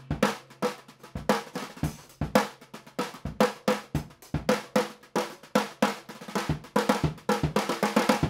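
TOCA Kickboxx suitcase drum kit played with carbon-fiber rod sticks: a steady beat on the snare and tom over the kick drum built into the side of the case. The playing stops abruptly at the very end.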